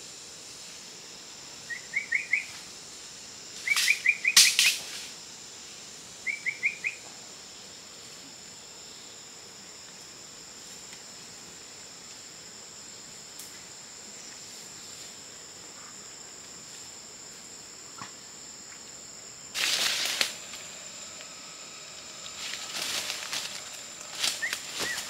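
Forest ambience: a steady high insect drone, with three short bursts of rapid chirping calls from a bird in the first seven seconds. A loud rustle comes about twenty seconds in, and rustling in dry leaf litter follows near the end.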